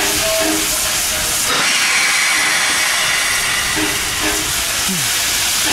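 USATC S160 steam locomotive standing in steam, hissing loudly and steadily; the hiss grows louder and brighter about a second and a half in. Short pitched notes come and go twice over the hiss.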